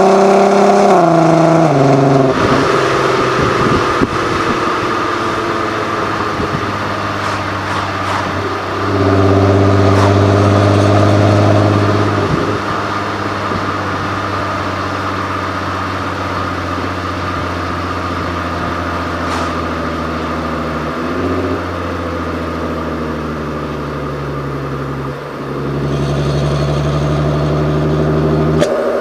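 Audi TT 8N 3.2-litre VR6 engine and exhaust running under way: the pitch drops at the start, holds steady through a louder stretch about nine seconds in, then slowly falls, and the engine grows louder again near the end before the sound cuts off abruptly.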